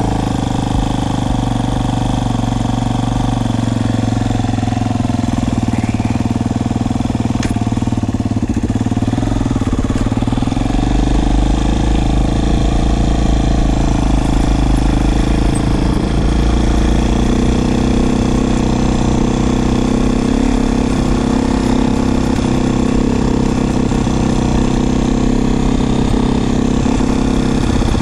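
Beta 500 RR dirt bike's single-cylinder four-stroke engine idling steadily, its low note growing stronger about ten seconds in.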